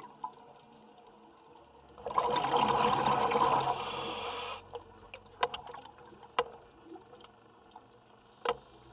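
A scuba diver's regulator exhalation: a loud rush of bubbles heard underwater for about two and a half seconds, starting about two seconds in. A few sharp clicks follow later.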